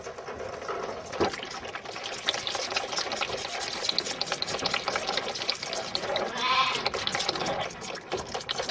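Calves in a pen, with a dense clatter of small knocks and rustles throughout and one calf calling about six and a half seconds in.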